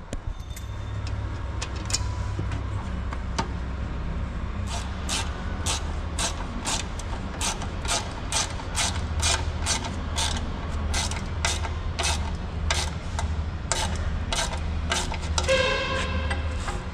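Ratchet wrench clicking in quick, even strokes, about two to three a second, as a bolt on the hopper's washout apron bracket is turned, over a steady low hum.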